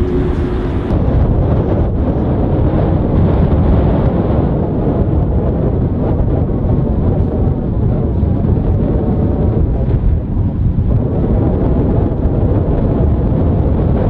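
Wind buffeting the microphone: a loud, continuous low rumble that flickers with the gusts.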